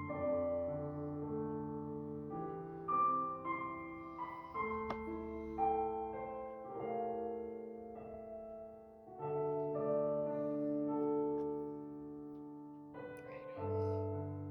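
Soft, slow background piano music with sustained chords and a bass line.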